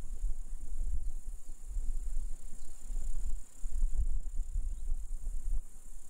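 Steady, high insect chirring, crickets or grasshoppers in the grass, over a low, uneven rumble.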